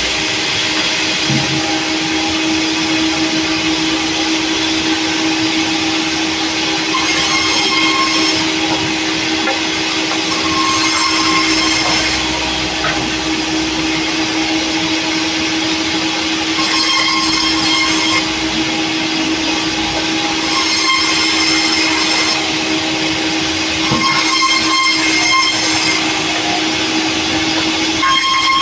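Sawmill running steadily under load, its saw cutting through a log, with a constant hum. Higher ringing tones rise and fall back every few seconds.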